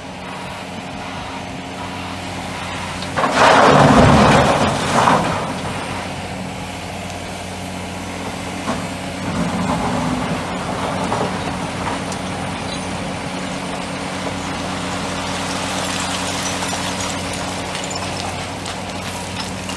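Heavy diesel engines of a large hydraulic excavator and an articulated dump truck running steadily, with loud crashes of broken rock about three seconds in and again at the very end as the excavator bucket loads rock into the truck's steel dump body, and a lighter rock scraping around the ten-second mark as the bucket digs into the pile.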